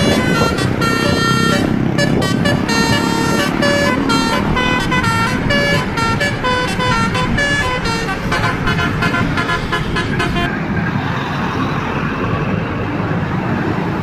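Bus telolet basuri horn playing a quick melody of changing horn notes, which stops about ten and a half seconds in. Engine and traffic noise remain under it and after it.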